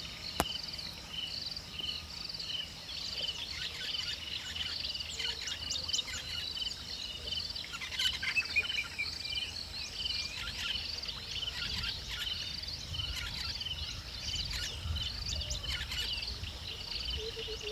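Outdoor ambience of a steady, rhythmic high chirping that repeats about twice a second, with a brief flurry of other chirps about eight seconds in.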